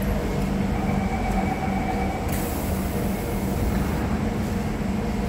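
Siemens C651 train standing at the platform, its equipment humming steadily. A faint tone sounds for about a second, then a loud hiss of air runs for about a second and a half.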